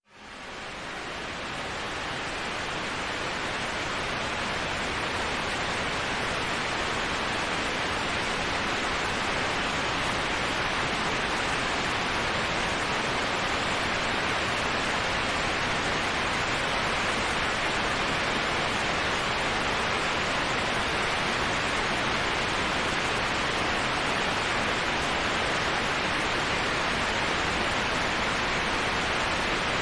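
Waterfall pouring: a steady, even rush of falling water that fades in over the first couple of seconds and then holds level.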